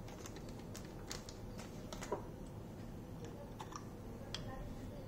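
About a dozen faint, irregular clicks and taps over a quiet background.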